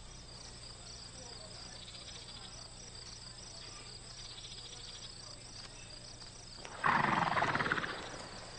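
Crickets chirping steadily in a rapid, even pulse, with a loud rushing crash about seven seconds in that fades over about a second.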